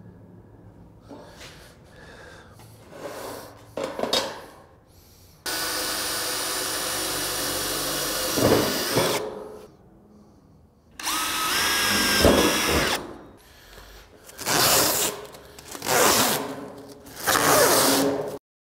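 Cordless drill pre-drilling fastener holes through thin painted sheet-metal gable trim: two runs of the motor, one of about four seconds starting about five seconds in and a shorter one about eleven seconds in that whines up in pitch as it spins up. Three short bursts of noise follow near the end.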